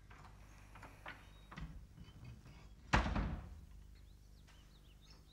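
Wooden door being shut: a few faint clicks, then one sharp loud knock as it closes about three seconds in, dying away briefly.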